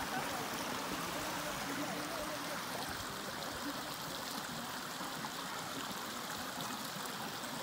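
A stream flowing: steady rushing water.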